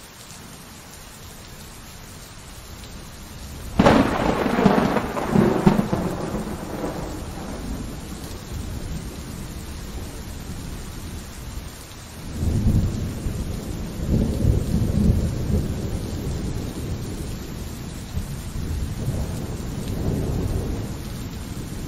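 Steady heavy rain, with a sharp crack of thunder about four seconds in that rumbles away over a few seconds, then two more low rolls of thunder later on.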